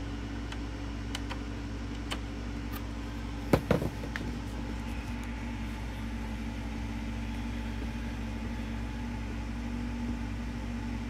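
Steady fan drone, from cooling fans running at full speed, with a few faint clicks and one louder knock about three and a half seconds in.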